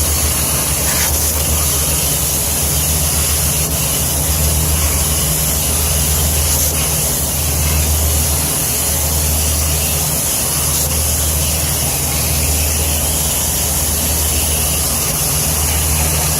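Water spraying steadily onto a rooftop HVAC unit's condenser coils to rinse them clean, over a constant low hum.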